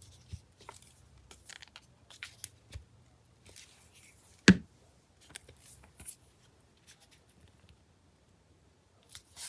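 File folder card being handled on a craft table: scattered light rustles and small taps, with one sharp click about halfway through.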